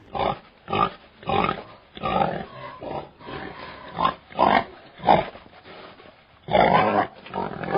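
Pig grunting and oinking: a run of short grunts at an uneven pace, with a longer, louder one near the end.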